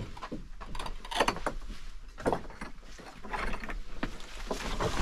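Footsteps and scuffs of people scrambling over loose lava-rock boulders, with rocks knocking together and clothing and a backpack rustling. A few sharper knocks stand out, about a second in and a little past two seconds in.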